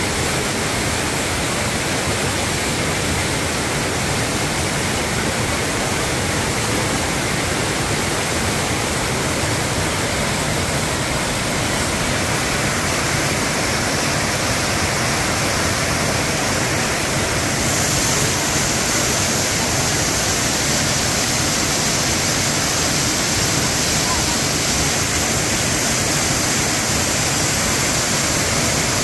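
Waterfall pouring down steep rock and splashing onto boulders: a steady rush of water that turns brighter and hissier a little after halfway.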